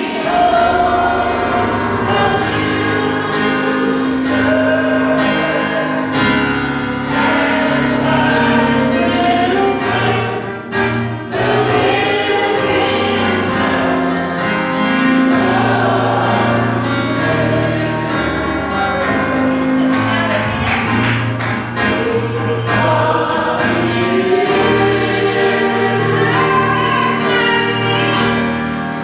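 Church choir singing a gospel song over instrumental accompaniment, with a steady bass line beneath the voices and a quick run of sharp hits about twenty seconds in.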